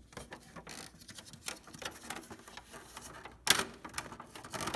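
Irregular light clicks and rattles of hands working on a reassembled Dell 1355cn laser printer's plastic casing as something is attached to it, with one louder knock about three and a half seconds in.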